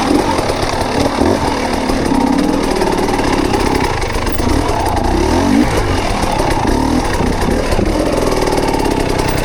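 Mountain bike riding noise from a camera carried on the bike or rider: tyres rolling over a rocky dirt trail with the bike rattling and wind on the microphone. It runs steadily, with a whirring note that rises and falls as the speed changes.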